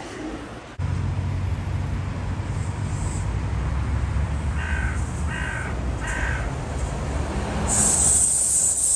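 A crow caws three times in quick succession over a steady low rumble of street traffic. Near the end a loud high hiss comes in.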